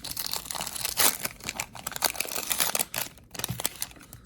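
Foil trading-card pack wrapper crinkling and being torn open by hand: a dense run of crackles with a few sharper snaps.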